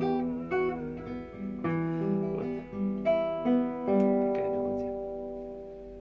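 Acoustic guitar closing a song: a few picked notes and chords, then a last chord about four seconds in left to ring and fade away.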